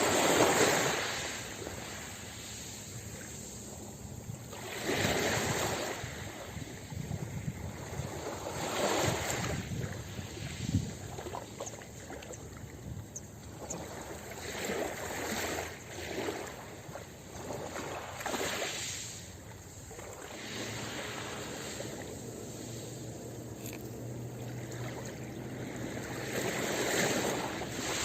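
Ocean waves breaking on a beach, the rush of surf swelling and fading every few seconds.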